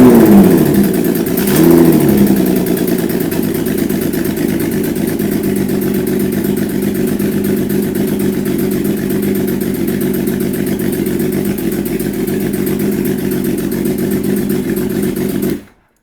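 Kawasaki Z1300 inline-six engine blipped twice, each time falling back, then idling steadily with a clapping, tapping noise. The owner puts the tapping down to the exhaust and the emissions cover blowing by, with a cylinder blowing by, and possibly a stuck valve. The sound cuts off suddenly near the end.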